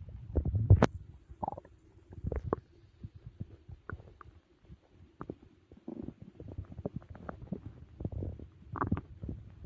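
Stomach growling and gurgling as it digests a big meal: irregular low rumbles with short squeaky gurgles, the loudest burst coming under a second in.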